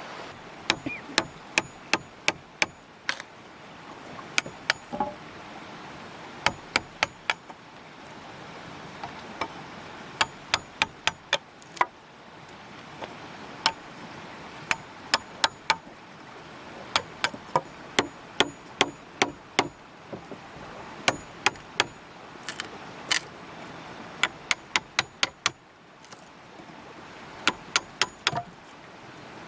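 Hand tool striking wood again and again, in quick runs of about four to eight sharp blows with short pauses between the runs.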